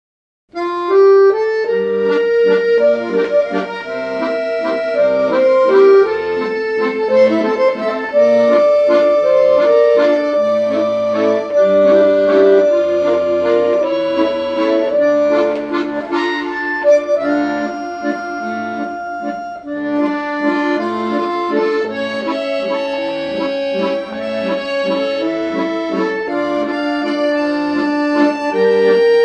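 Accordion music: a melody of held notes over sustained chords, starting about half a second in.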